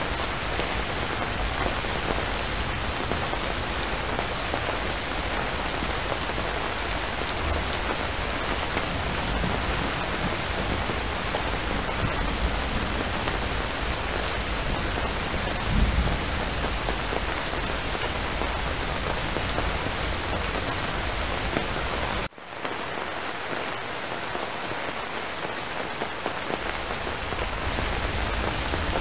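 Steady, heavy rainfall hissing evenly, with a brief low thump about halfway through. About three-quarters of the way in the sound cuts out for an instant, then the rain resumes thinner, with less low rumble.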